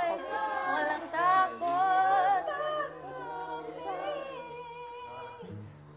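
Voices singing unaccompanied, rehearsing a Filipino pop song, with held and gliding notes; the singing grows softer over the last few seconds.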